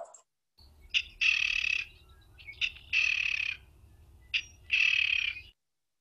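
King rail giving its tick-and-burr call three times, each a short tick followed by a longer buzzy burr, evenly spaced about a second and a half apart, over a faint low hum from the recording.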